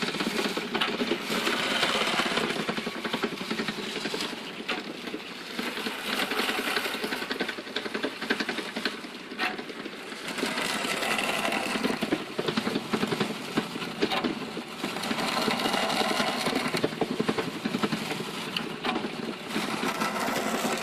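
Homebuilt sand muller running: a concrete roller and plows churning foundry sand in a cut-down steel barrel, driven by a Maytag washing-machine motor, making a grinding rattle. A scraping swells and fades about every five seconds as a plow scrapes the barrel's side, because the barrel isn't perfectly round or isn't mounted exactly on center.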